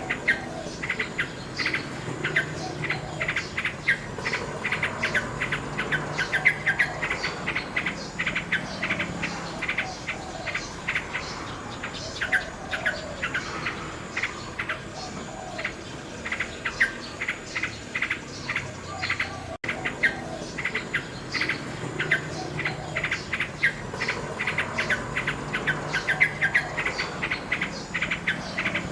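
Nightingale singing a fast, continuous run of chirps and trills, with insects chirping steadily underneath. The sound briefly cuts out about twenty seconds in.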